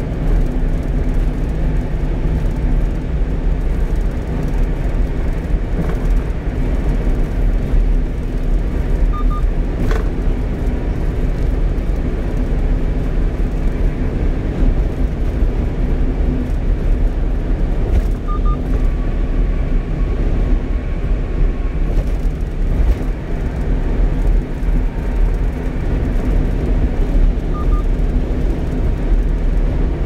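1-ton truck cruising at steady speed on an expressway: continuous engine and tyre-on-road rumble, even throughout.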